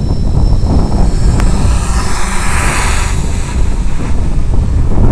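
Heavy wind buffeting on the onboard microphone of a radio-controlled model aircraft in flight, with its electric motor and propeller running underneath. A single sharp click comes about one and a half seconds in, and the hiss swells for about a second midway.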